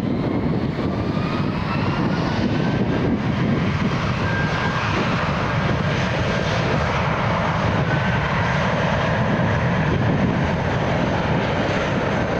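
Airbus A319 jet airliner taking off, its twin engines at takeoff power: a steady, loud roar with a whine that rises in pitch over the first few seconds and then holds.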